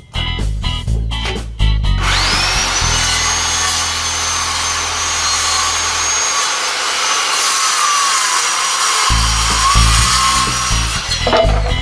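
Electric power tool starting up with a quickly rising whine, running at steady high speed for about nine seconds with its pitch sagging briefly near the end, then winding down. Reggae music plays under it at the start and end.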